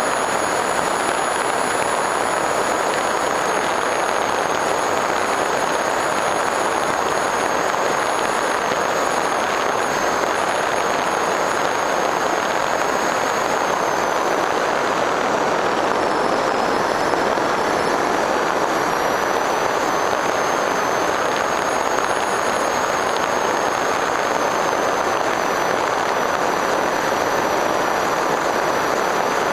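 Electric RC plane (FPV Raptor 1600mm) heard from its onboard camera in flight: a steady rush of airflow and propeller noise with a thin, high motor whine on top. The whine sags slightly about halfway through and then rises back.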